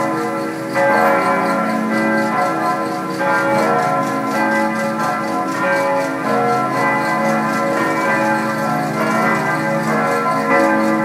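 Church bells ringing, several bells sounding together in a continuous, overlapping peal with fresh strokes every couple of seconds.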